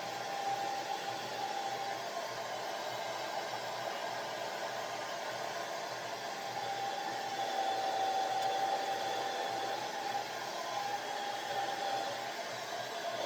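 Handheld hair dryer running steadily: an even rushing of air with a faint thin whine that grows a little stronger around the middle.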